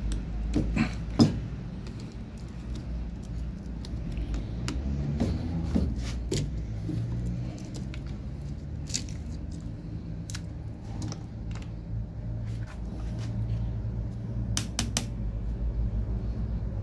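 Screwdriver prying and scraping at the metal end cap of a cylindrical LiFePO4 battery cell: irregular sharp metallic clicks and scrapes, the loudest about a second in and a quick cluster near the end.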